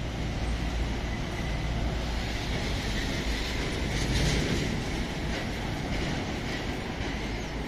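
Steady low rumble and hiss of street traffic, with a faint high whine running through it.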